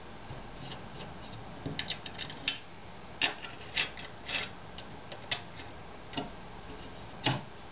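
Irregular small metallic clicks and taps from bolts and hardware being fitted as a linear rail is mounted onto aluminium extrusion. The sharpest clicks come about three seconds in and near the end.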